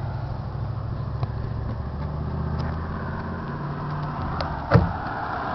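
Rotax 700cc two-stroke twin engine of a 1997 Sea-Doo GS idling, its idle wavering slightly in pitch. A single sharp knock about three quarters of the way through.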